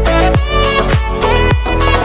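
Background music with a steady, deep electronic-style kick beat under sustained melodic tones.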